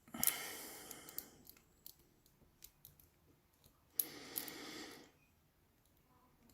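Lock picking a Master Lock 140 padlock: scattered light clicks of the pick and tension wrench working the pins, with two longer scratchy noises about a second long, one at the start and one about four seconds in.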